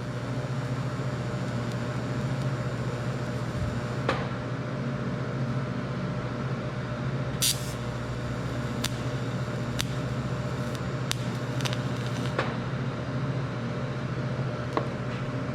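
Welding arc on the steel hinge pin brackets: a steady crackling hiss over a low electrical hum, with a few sharp clicks and a brief higher hiss about halfway through.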